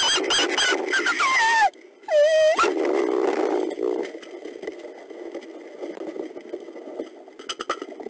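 Mexican gray wolves in a den: pups squealing and whining with high cries that slide up and down for a couple of seconds, then one shorter yelp, as the mother wolf disciplines them. A lower, rough growling sound follows and fades away.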